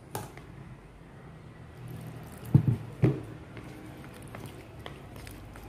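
A spoon stirring squid rings through thick, wet spice batter in a plastic bowl, a soft squishing, with two short louder bumps a little past halfway.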